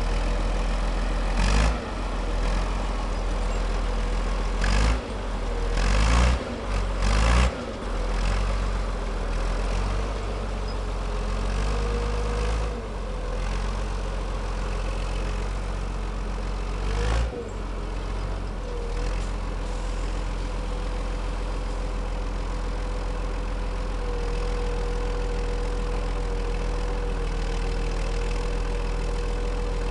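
The Volvo D70B 6.7-litre six-cylinder diesel of a 1978 SMV 21 S forestry forwarder runs steadily as the machine ploughs through deep snow. Several loud thumps come through in the first half.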